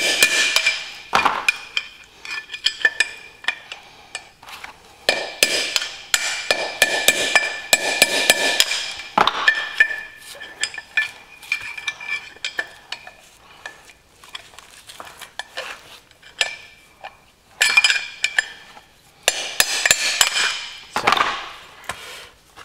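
Hammer blows on a screwdriver used as a drift, knocking the old wheel-bearing race out of a rear brake drum bit by bit. The metal strikes come in quick, irregular clusters with a ringing tone, and there are short pauses between the clusters.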